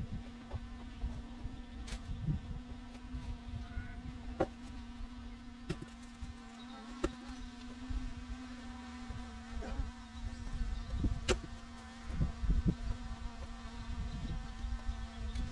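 Mini excavator's diesel engine running at a steady speed as a constant drone, with scattered sharp clicks and knocks over it.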